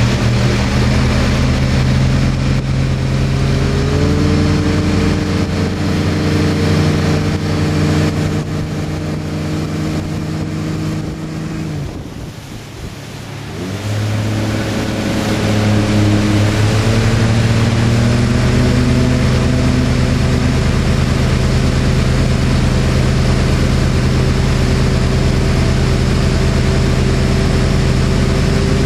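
Ski boat's engine running steadily under way, with water rushing and spraying along the hull. About halfway through the engine eases off and drops in pitch for a couple of seconds, then throttles back up and holds steady again.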